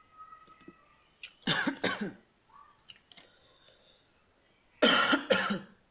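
A person coughing: two short bouts of two coughs each, one about a second and a half in and a louder one near the end.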